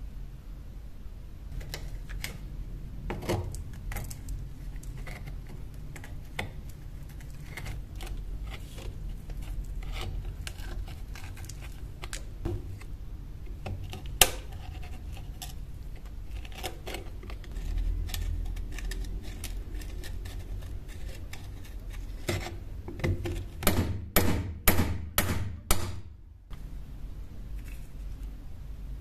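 A flat chisel chipping and scraping a thick crust of rust and hardened soil off a corroded iron blade on a wooden board, with irregular clicks and crumbling as lumps break away. Near the end comes a quick run of about seven harder strikes, about three a second, then the sound cuts off abruptly.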